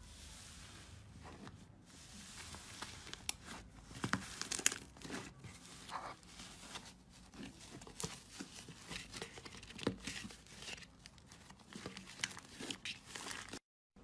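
Hands squeezing, kneading and stretching a purple slime, giving faint, irregular crackling and small tearing pops as the slime is pressed and pulled apart. The crackles grow denser about a third of the way in and stop abruptly near the end.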